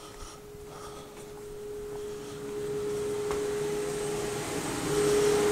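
Electric motor of a workshop power tool running with a steady hum, its whir growing gradually louder.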